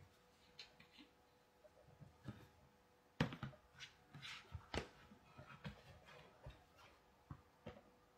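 Faint, scattered clicks and light knocks of small objects being handled, with two louder knocks near the middle.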